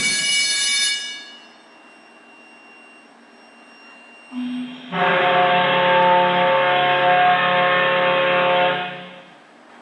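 SS Badger's whistle sounded from the exhibit's whistle button: a brief low note, then a long, steady blast of about four seconds with several tones sounding together. Before that, a higher whistle note cuts off about a second in.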